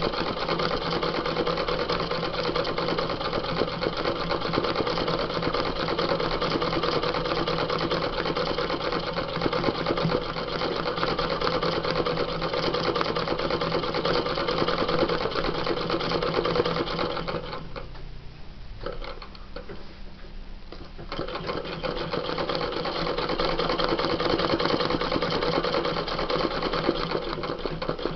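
Domestic sewing machine running steadily as it stitches an embroidery design through tracing paper and denim held in a hoop. It stops for about three seconds two-thirds of the way through, then starts stitching again.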